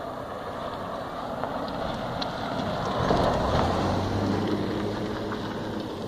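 A car passing by on the road, its tyre and engine noise building to a peak a little past halfway and then fading, with a low steady engine hum lingering afterwards.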